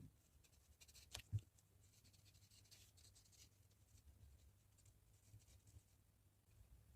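Faint strokes of a pen scratching across paper, with one short knock about a second in.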